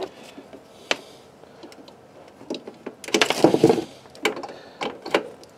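Handling noise as a power cord is plugged into the back of a hot air rework station: scattered sharp clicks and knocks, with a burst of rustling and scraping of cables about three seconds in.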